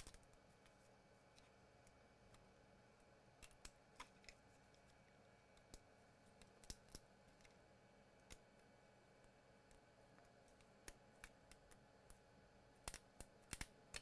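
Near silence broken by scattered faint clicks and taps as a graphics card is handled and pushed at a PCIe slot that it will not seat in.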